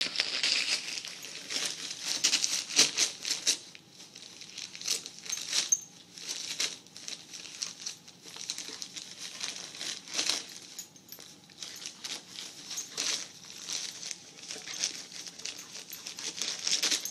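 A dog tearing and crinkling the wrapping paper off a present with its teeth: irregular paper crackling, busiest in the first few seconds, quieter for a few seconds, then picking up again.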